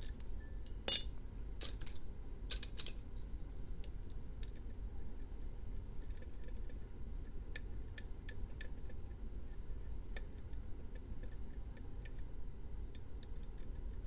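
Small metallic clicks and scrapes of lock picking: a pick and tension wrench working the pins of an ASSA Max+ restricted pin-tumbler lock. There are a few sharper clicks in the first three seconds, then fainter scattered ticks, over a steady low hum.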